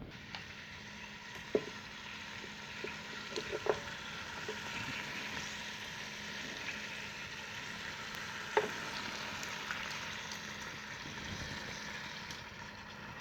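Chicken thighs sizzling as they brown in the Ninja Foodi's pot, a steady frying hiss, with a few short sharp clicks.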